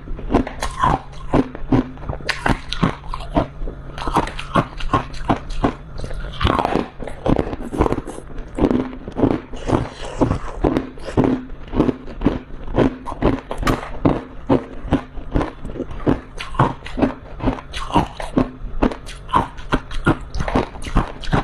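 Mouth crunching and chewing a chunk of freezer frost: a steady, unbroken run of sharp crunches close to the microphone.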